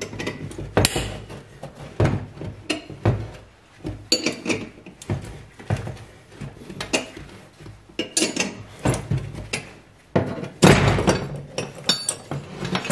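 Metal clicks, creaks and clanks of a steel two-jaw gear puller being worked against a Škoda Felicia alternator's rotor shaft, the jaws and housing knocking on a workbench. About two thirds through, a louder burst of bangs and clatter as the rotor breaks free of the front housing, the puller's force cracking the rivets that held the bearing retainer plate.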